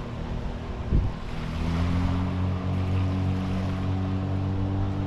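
A boat motor running steadily, its low hum shifting slightly in pitch about a second and a half in, under wind noise on the microphone. A single sharp thump about a second in.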